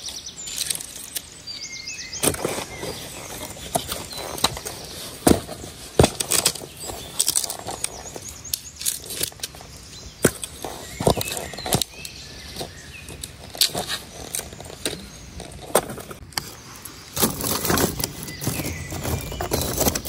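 Dry deadwood being gathered by hand: sticks and branches snapping, cracking and knocking together in irregular sharp strokes, with a spell of rustling near the end. Birds chirp now and then.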